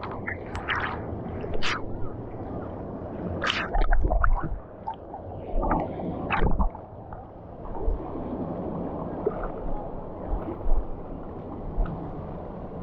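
Water rushing and sloshing under a rider going down a water slide, with short sharp splashes and a few low thuds in the first half.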